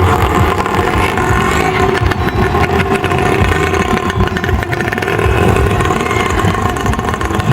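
Small engine of a bajaj auto rickshaw running steadily.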